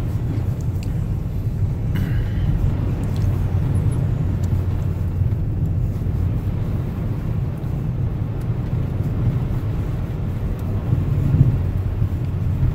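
Steady low rumble of a car's engine and tyres, heard from inside the cabin while driving on a snow-covered road.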